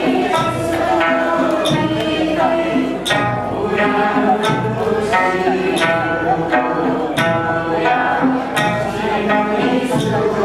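Two sanshin, Okinawan three-stringed snakeskin lutes, plucked in a steady rhythm under voices singing a folk song together.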